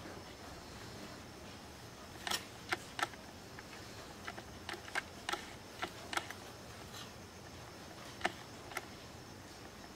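A small metal spoon clinking a dozen or so times, in short sharp irregular clicks, as coconut stuffing is scooped from a glass bowl and tapped onto rolled dough.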